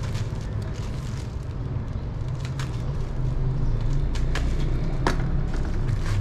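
A steady low rumble that grows louder about three seconds in, with a few sharp crackles of a paper packet being handled and opened.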